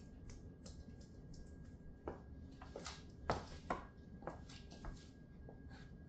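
Stiletto heels of patent-leather boots tapping on a wood-look floor and pressing into a tomato: a scatter of small sharp clicks, with a cluster of louder clicks and squelchy crunches about two to four seconds in.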